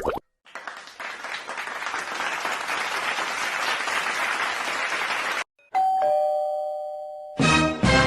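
Applause for about five seconds, cutting off abruptly, then a two-tone ding-dong doorbell chime, the second note lower, ringing out and fading.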